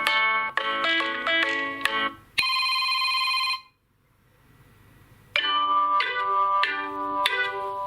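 Nokia 2.2 stock Android ringtones playing in turn: a melodic ringtone's notes end about two seconds in, a single held electronic tone sounds for just over a second and cuts off suddenly, and after a short pause a new melodic ringtone begins with marimba-like notes.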